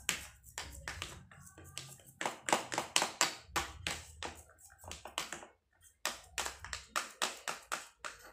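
Hands patting and kneading soft carp bait dough in a plastic tray: a quick run of soft slaps and taps, about three or four a second, with a short pause partway through.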